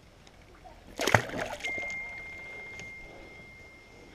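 Water splashing once, short and loud, about a second in, followed by a steady high-pitched tone lasting a couple of seconds.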